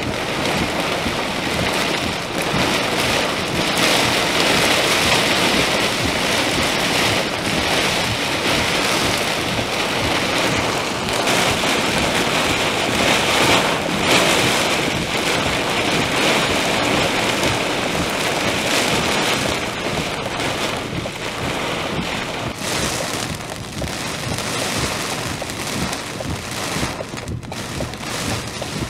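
Heavy wind-driven rain pelting a vehicle's windshield and body, heard from inside the car. It is heaviest through the middle and eases a little after about twenty seconds.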